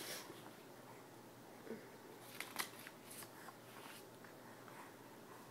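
Quiet room with a few faint, brief rustles and ticks of a sheet of paper being handled, bunched together about halfway through.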